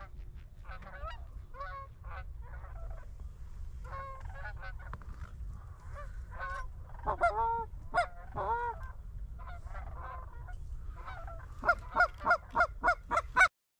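Geese honking, many scattered calls over a steady low rumble, with a loud quick run of about seven honks near the end that stops abruptly.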